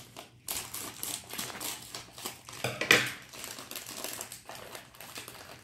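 Plastic wrapper of a small cookie packet crinkling and rustling as it is handled and opened, with a louder crackle about three seconds in.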